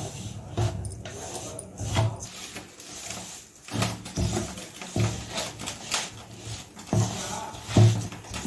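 A spoon and hand stirring and scraping a coarse, crumbly dough of rice and pearl-millet flour with jaggery syrup in a steel bowl: irregular scrapes and dull knocks about every second.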